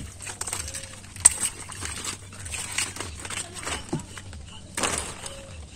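Water hyacinth being pulled up and broken apart by hand: irregular crackling snaps of the fleshy stems and leaves, with pattering water. One sharp snap comes about a second in, and a louder rustling burst comes near the end.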